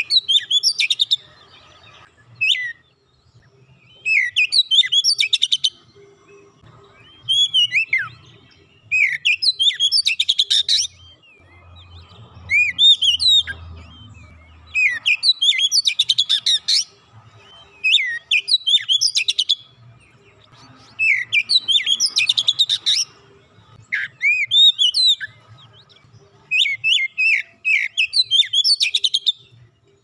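Oriental magpie-robin (kacer) singing: loud, varied whistled phrases with fast rattling trills, each a second or two long, repeated about every two seconds with short pauses between.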